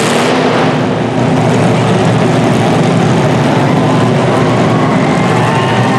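Demolition derby car engines running loudly and steadily, several engines together.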